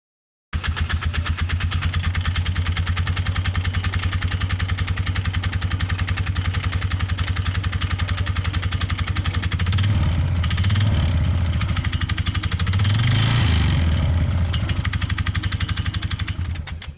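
Polaris 500 HO ATV's single-cylinder four-stroke engine running at idle with even pulses, blipped twice near the middle. The owner puts the strange knocking down to worn rubber buttons on the spider in the CVT drive clutch.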